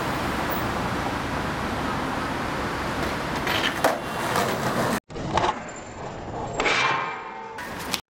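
Skateboard wheels rolling on pavement with a steady rumble, then sharp wooden clacks of the board, twice about three and a half seconds in. After a cut, more rolling and several further clacks.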